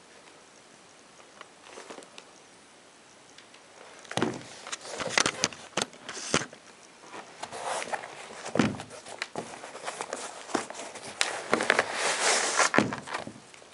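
Nike Zoom Kobe 5 sneaker being handled on a wooden tabletop: starting about four seconds in, irregular knocks and clicks as it is set down and moved, with rustling of the shoe and its laces between them.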